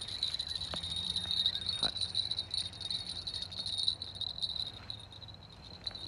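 Crickets chirping in a steady, high-pitched chorus, with faint clicks from a fishing reel being wound in.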